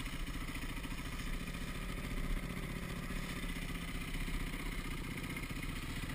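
Yamaha WR450F's single-cylinder four-stroke engine running at low revs with a steady, even beat, with no revving up or down.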